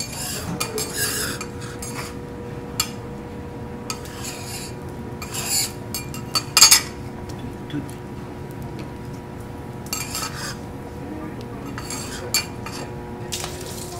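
Metal spatulas scraping and clacking on a teppanyaki griddle in scattered strokes, the loudest cluster about halfway through, over a steady hum.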